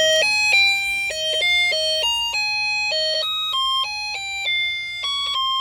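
Triggered Snap Circuits burglar alarm sounding through its small speaker: a quick tune of buzzy electronic beeps stepping up and down in pitch, several notes a second.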